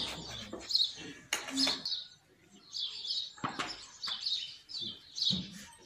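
Small birds chirping in quick, repeated short notes, with a few sharp knocks and brief snatches of voices.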